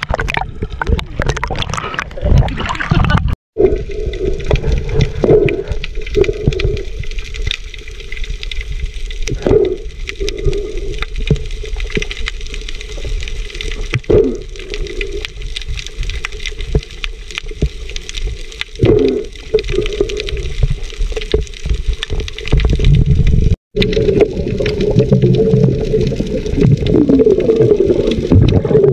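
Water splashing as the camera bobs at the surface, then the muffled slosh and rumble of seawater heard through an underwater camera housing, with scattered knocks. It drops to silence twice, briefly.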